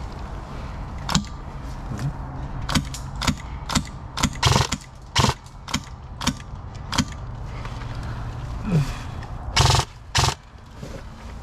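Airsoft guns firing single shots: about a dozen sharp cracks at uneven intervals, mostly about half a second apart, with the two loudest near the end, over a steady low hum.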